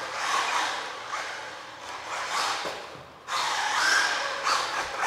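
UDI RC Panther 1/16-scale brushless RC car running in repeated bursts of throttle, its motor and drivetrain whining up and fading away, with the stock tyres sliding on the smooth floor. It goes briefly quieter just before the middle, then comes in suddenly loud again.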